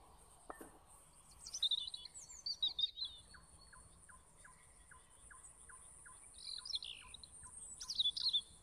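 Wild songbirds singing in three short bursts of quick chirps, over a steady high-pitched whine. A soft regular ticking, about three a second, runs through the second half.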